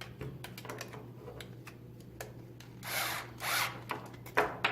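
Small metal hardware and a hand tool being handled: light clicks and taps, then two short scraping rubs about three seconds in, and a sharper click near the end.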